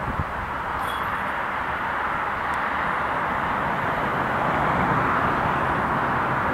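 Steady outdoor rushing noise with no clear single source, growing slightly louder over the seconds.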